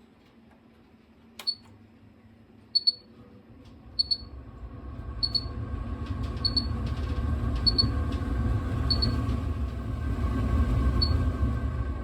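Kitchen range hood beeping about every 1.3 s with short high electronic beeps, while its exhaust fan motor spins up from about 3.5 s in and runs with a low rumble and steady hum.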